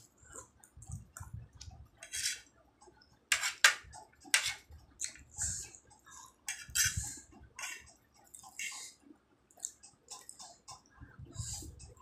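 Close-up eating sounds: chewing and slurping dry instant noodles, with light clicks and scrapes of a metal fork on a china plate.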